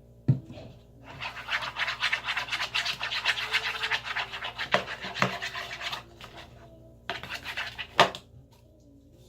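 A stick stirring glue-and-detergent slime in a bowl, scraping against the bowl in rapid strokes. There are two spells of stirring, the first long and the second short, with sharp knocks of the stick on the bowl about a second in and again near the end.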